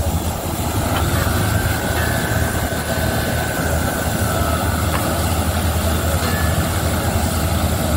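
Truck-mounted borewell drilling rig running steadily, its engine and air compressor blowing water and slurry up out of the new bore: the bore has struck water. A faint whistling tone comes in about a second in.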